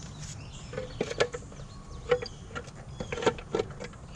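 A few sharp clicks and knocks from hand work on an engine under the hood, with parts and tools being handled, over a low background hum.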